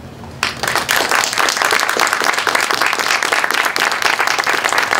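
Audience applauding: many hands clapping break out suddenly about half a second in and keep going densely.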